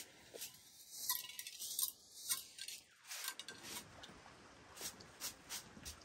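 Short straw hand broom swept in quick, irregular strokes over a carpet, brushing dirt into a metal dustpan: a dry, scratchy swishing.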